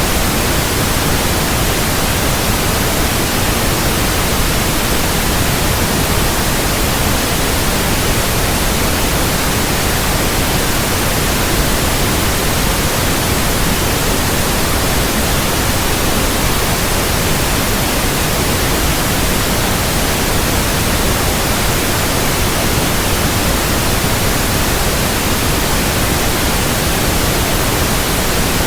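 Steady white noise: an even, unchanging hiss across the whole range, with nothing else in it.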